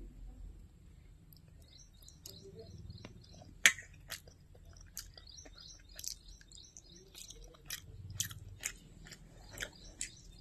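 Close-up chewing and biting of crunchy food, with a run of sharp irregular crunches; the loudest bite comes about three and a half seconds in.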